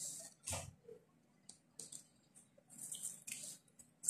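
A tablespoon scooping coarse salt from a plastic container and sprinkling it over meat in a pot of water: a single soft knock about half a second in, then faint gritty rustling of the salt near three seconds.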